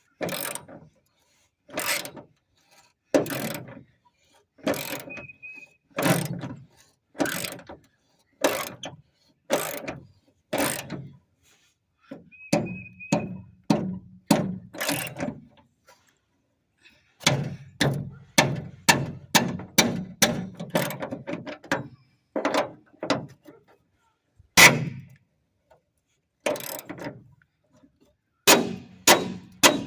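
Hand ratchet wrench tightening a fastener: a long run of ratchet strokes, about one a second at first, then quicker strokes in the middle, with a couple of short high squeaks.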